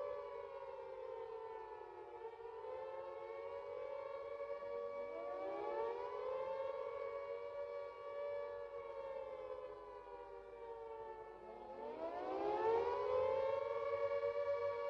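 Carter electro-mechanical civil defence siren wailing. Its pitch sags about two seconds in, then winds back up around five seconds in and again near twelve seconds.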